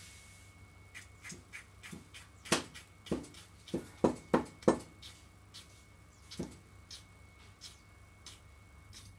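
Freshly sharpened cleaver chopping down onto a thick wooden chopping block: a string of short knocks, with the loudest chops coming in a quick run a few seconds in and lighter taps before and after.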